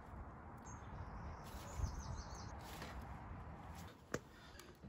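Faint low rumble with a few distant bird chirps, and one sharp click about four seconds in.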